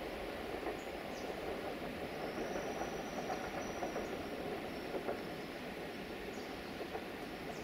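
Train passing out of sight: a steady rolling rumble with scattered faint clicks, and a faint high whine from about two to four seconds in.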